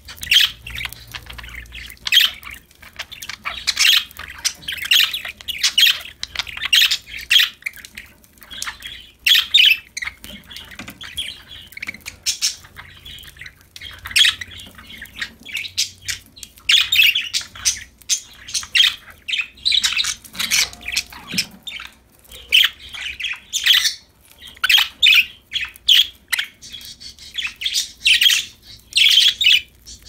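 Several pet budgerigars (parakeets) chirping and chattering to each other, a near-continuous stream of short, high calls.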